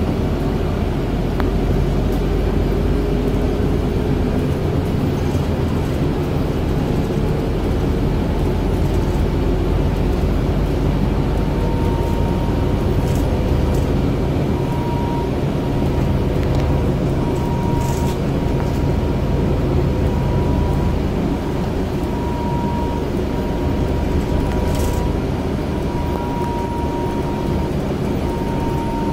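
Scania Citywide 12 LF city bus heard from inside the passenger cabin while driving: steady engine and road rumble. A thin, steady whine joins in about ten seconds in.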